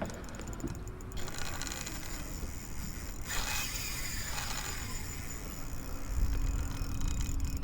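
Fishing reel being worked under load while fighting a big fish, with line and reel mechanism noise over a steady hiss. A brief louder scrape comes about halfway through, and a steady low hum joins near the end.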